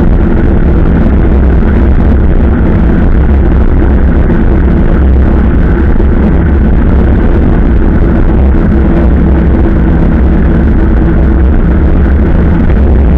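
Loud, steady wind rumble on a moving bicycle-mounted or body-worn camera's microphone while riding, heaviest in the low end and unbroken throughout.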